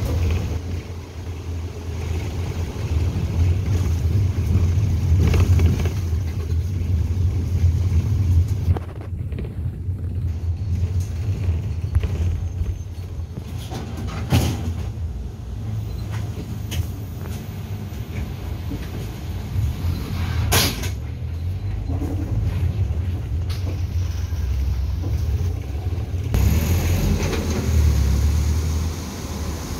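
Engine and road rumble heard from inside a moving minibus, steady and low, with two sharp knocks partway through. Near the end it changes to open street traffic noise at a roadside stop as a minibus passes.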